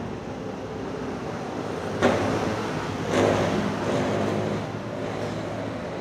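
Road traffic: a steady engine hum, with a louder vehicle starting up and accelerating past about two to three seconds in.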